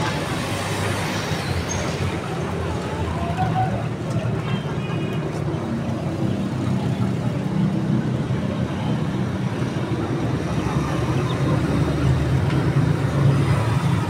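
A steady low rumble of background noise.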